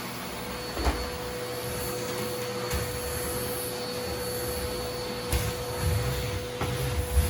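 Vacuum cleaner running steadily over tatami mats, a continuous rushing hum with a steady whine, and a few knocks and bumps from the head and hose being moved.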